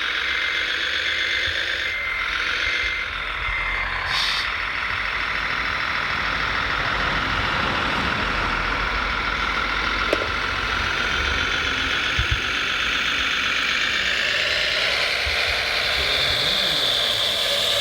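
Radio-controlled model trucks' electric drive motors and gearboxes whining steadily, growing louder near the end. A reversing beeper beeps evenly for about the first four seconds.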